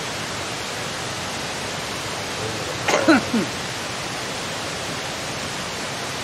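Steady, even rushing noise in the background, with one short falling-pitched vocal sound from a person about three seconds in.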